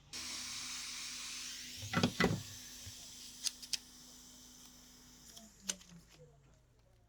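Hot air blower switched on and blowing with a loud hiss and a steady fan hum, heating the phone's back cover to soften its adhesive; the hum slides down in pitch and fades near the end as the fan winds down. Two sharp knocks about two seconds in and a few clicks later come from the prying tools on the phone.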